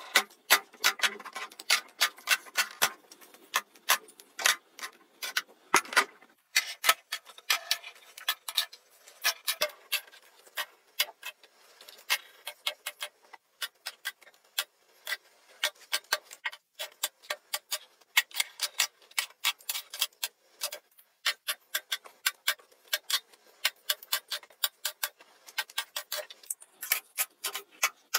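Plastic and metal makeup palettes and compacts clicking and tapping against clear acrylic organizers as they are set in place: a quick, uneven run of sharp clicks with a few short pauses.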